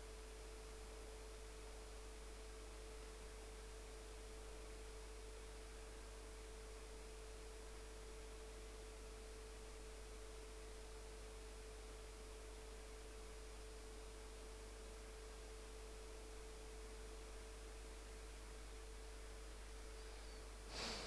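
Faint, steady electrical hum with a constant tone, over low hiss; a single brief click just before the end.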